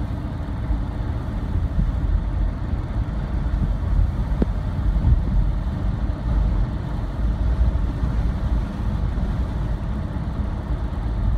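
Car driving along a city street: a steady low rumble of road and engine noise.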